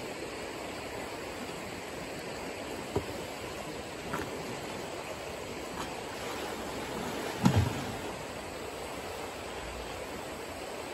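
Steady rushing of a shallow river running over rocks. A short knock comes about three seconds in, and a louder thump about seven and a half seconds in.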